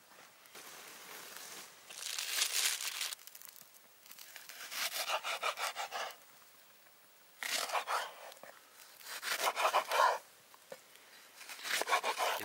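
Kitchen knife sawing through Japanese long green onion (negi) on a wooden cutting board, in several short bursts of quick strokes, one burst for each slice.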